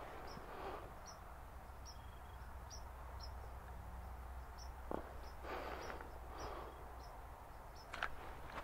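Quiet dusk field ambience: short, high chirps repeat every half second or so, over a low steady hum. A single sharp click sounds right at the very end.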